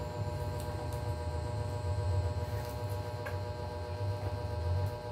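Steady electrical hum, with a few faint clicks and rustles as a handbag is handled.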